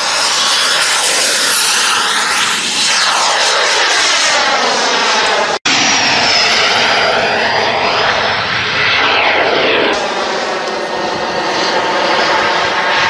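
Turbine of a radio-controlled Carf Model Viper Jet, an 18 kg KingTech, running at speed with a high whine and a rush of air as the model flies past, the whine falling in pitch as it goes by. The sound drops out for an instant a little over halfway through, then another fast low pass follows.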